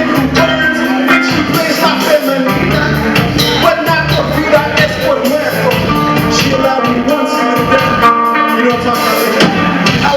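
Loud live band music with steady drums and a singing voice.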